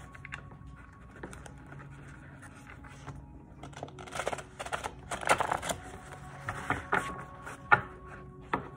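Tarot cards being riffle-shuffled by hand: a run of quick rustling card flutters about four to six seconds in, then a few sharp clicks as the deck is handled. Faint background music underneath.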